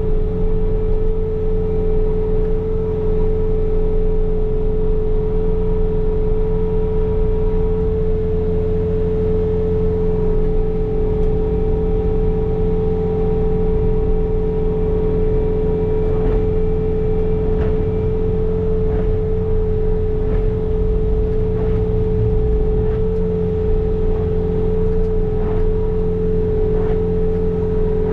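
Bobcat T66's diesel engine running steadily while it drives a snow blower attachment, with a strong steady whine over the engine.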